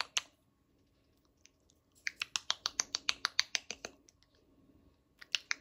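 Pet bird making quick runs of sharp clicks, about eight a second: one about two seconds long starting two seconds in, and another starting near the end.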